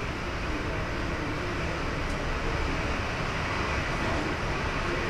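Boeing 737-800's CFM56-7B jet engines at taxi power, a steady rushing noise that grows slightly louder as the aircraft comes closer.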